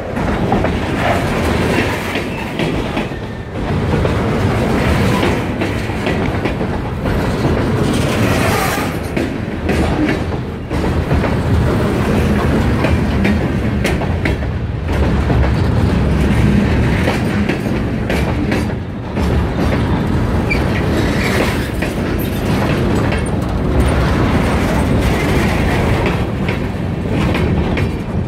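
Freight train of covered hopper cars rolling past close by. Its steel wheels clack over the rail joints under a steady heavy rumble and rattle.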